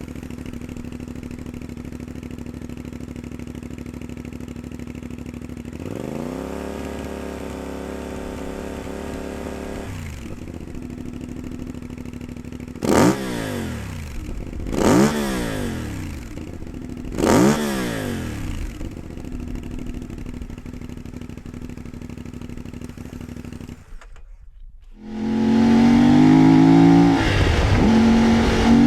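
CFMOTO 450MT parallel-twin motorcycle engine breathing through a budget AliExpress slip-on exhaust. It idles, then is held at about 4000 rpm for a few seconds, and gets three quick throttle blips toward 8–9000 rpm. Near the end it comes back loud, accelerating hard in second gear for a drive-by.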